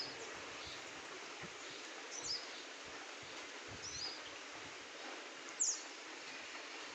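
Steady hiss of light rain and wind, with a small bird giving short, high chirps a few times; the sharpest chirp comes a little past the middle.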